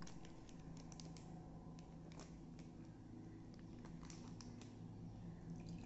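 Faint, scattered light clicks and taps as a spoonful of custard powder is put into a small glass tumbler, over a low steady hum.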